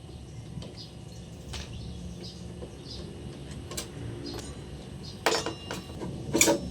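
Work on a scooter's front wheel parts: scattered small clicks and two loud, sharp knocks near the end, over faint bird chirps.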